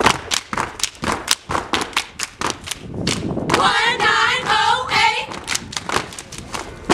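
Step routine: a group of steppers clapping and stomping in rhythm, high heels striking a stone patio, several sharp hits a second. Midway the group chants in unison for a couple of seconds over the beat.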